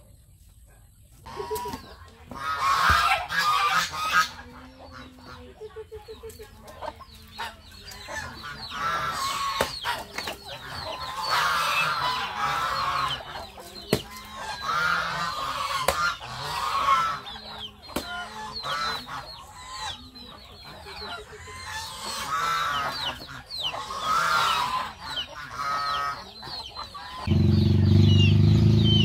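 Domestic geese honking in repeated bouts, with chickens calling in the mix and a few sharp knocks in between. Near the end a louder, lower clucking of hens close by comes in.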